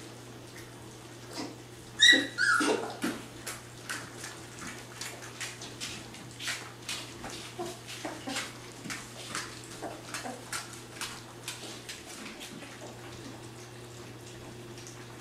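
Three-week-old Labrador retriever puppies eating gruel from pans: a run of short wet lapping and smacking clicks, about two or three a second, that thins out near the end. About two seconds in, one puppy gives a short whimpering cry that falls in pitch, the loudest sound.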